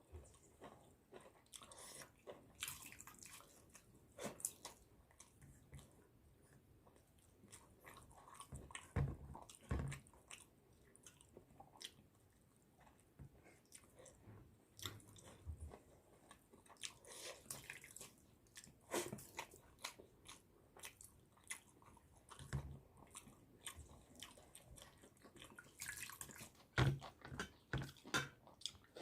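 A person chewing and biting a meal of pakhala, watery fermented rice, with crisp fried bhaja. The sound is irregular: crunches, small clicks and wet mouth sounds, with louder bites about nine seconds in and again near the end.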